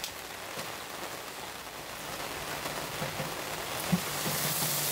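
Heavy rain falling in a steady hiss, with a single faint tap about four seconds in.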